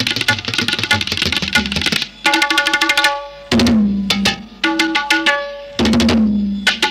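Hand-drum percussion music: a fast, dense run of strokes for about two seconds, then sparser ringing strokes, two of them deep strokes whose pitch bends downward.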